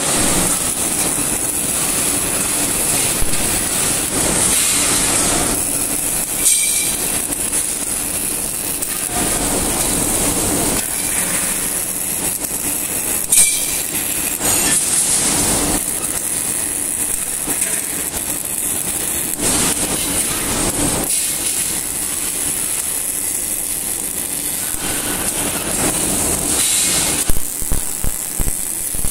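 Robotic MIG welding: the welding arc crackles and hisses steadily, with a low hum under it and a few sharper cracks.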